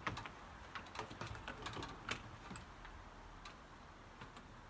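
Faint, irregular clicks and taps as a sliding screen door is handled and fitted into its top track.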